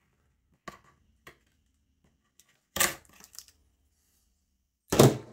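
Cardboard packaging being pried open with a knife: a couple of faint clicks about a second in, a louder scraping crackle near three seconds, and a sharp knock about five seconds in.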